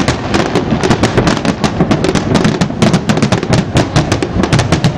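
Fireworks display at the end of the show, shells bursting in a dense, continuous barrage: many sharp cracks a second over overlapping low booms.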